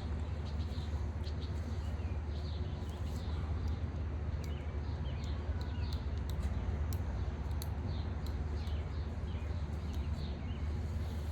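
Songbirds chirping and calling in short, repeated phrases over a steady low rumble.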